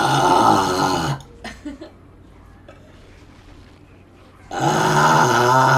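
A woman burping loudly twice. The first low burp lasts about a second at the start, and the second begins about four and a half seconds in and is still going at the end.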